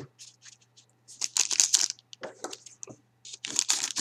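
Foil trading-card pack wrappers crinkling in short bursts as they are handled, with scissors cutting into a pack near the end.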